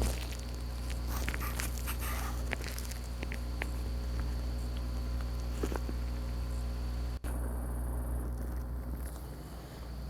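Steady low electrical hum with a few faint clicks and rustles.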